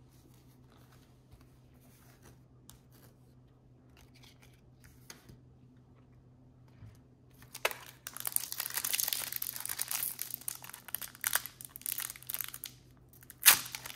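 A trading-card pack wrapper being torn open and crinkled. It starts about halfway through with a loud, dense crackle and ends with a sharp rip near the end. Before that there are only faint ticks of cards being handled.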